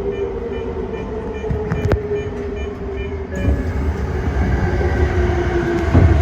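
Tōyō Rapid Railway 2000 series electric train running along the line: a continuous rumble of wheels on rail under a steady motor whine whose pitch shifts lower in the second half, with a heavier thump near the end.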